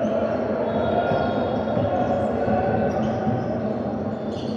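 Basketball game play on a hardwood gym court: the ball bouncing amid a steady background of court noise.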